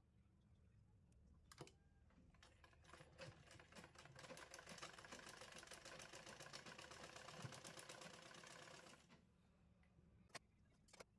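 Black domestic sewing machine stitching: a quiet, fast run of even needle-stroke clicks that starts about two seconds in and stops about nine seconds in. A few single clicks come before and after the run.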